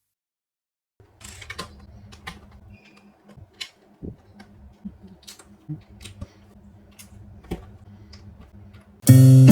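Plastic LEGO pieces clicking and clattering as they are handled and snapped together: faint, irregular sharp clicks over a low steady hum. Loud guitar music starts suddenly near the end.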